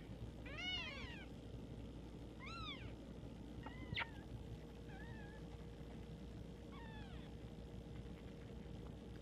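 Cat meowing: about five short, faint meows spaced a second or two apart, each rising then falling in pitch.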